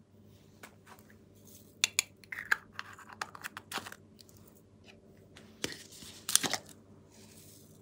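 Small plastic containers being handled and opened: a run of sharp plastic clicks and crinkles, with the loudest crackling bursts a little after halfway, as a clear container of foam beads is squeezed.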